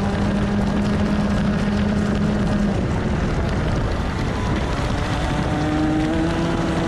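125cc TAG two-stroke kart engine at high revs with wind rushing past. About two and a half seconds in the steady engine note drops away as the driver lifts for a corner, then the pitch climbs again as the kart accelerates out.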